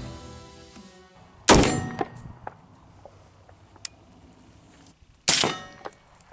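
Two suppressed rifle shots about four seconds apart from a 5.56 AR-15 fitted with a SilencerCo Omega suppressor, each a sharp crack followed by a short metallic ring. Music fades out just before the first shot.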